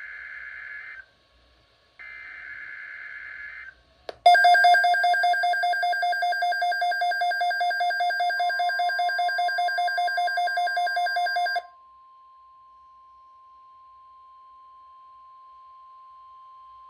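NOAA Weather Radio SAME alert header: two buzzing bursts of digital data tones, about a second apart. About four seconds in, a Midland weather alert radio's own alarm goes off, a loud, rapidly pulsing two-pitch beep that stops about seven seconds later, while the broadcast's steady attention tone starts underneath and runs on faintly to the end.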